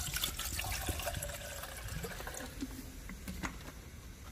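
Water poured from a bottle into a small metal camping kettle, trickling and splashing; the pour is loudest in the first two seconds, then tails off.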